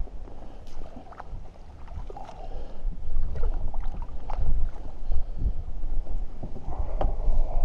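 Strong wind buffeting the microphone in a steady low rumble, with water sloshing and splashing as a landing net is dipped into the lake and a trout is released from it.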